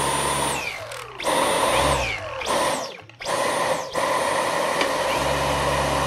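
Dyson V11 cordless stick vacuum running with its motorized High Torque brush head spinning freely, held up off the floor. It has a high steady whine. Twice it winds down with a falling whine and starts up again, then it runs steadily.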